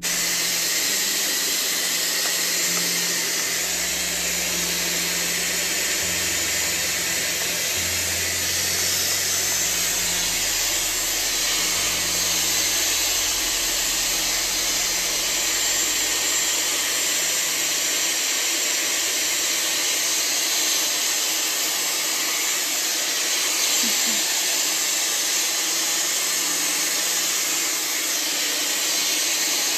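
Dyson Airwrap hair styler running steadily, blowing air through the hair at the crown while drying it. The motor and airflow make a constant, even rushing hiss.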